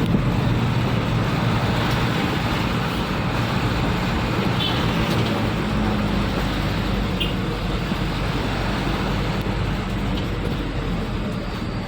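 A motor vehicle's engine running steadily with road and traffic noise, with two faint short chirps partway through.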